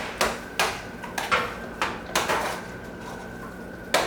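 A utensil knocking against a pot while mashed potatoes are mixed: about seven sharp knocks in the first two and a half seconds, then a pause and one more knock near the end.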